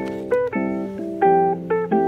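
Background music: plucked acoustic guitar picking a melody of notes struck about every half second.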